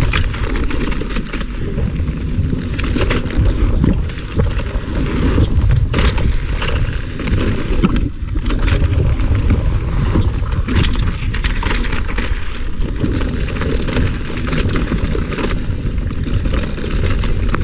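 Mountain bike riding fast down a dirt trail: wind buffeting the camera microphone over a steady rumble of tyres on packed dirt, with a few sharp clicks and rattles from the bike over bumps.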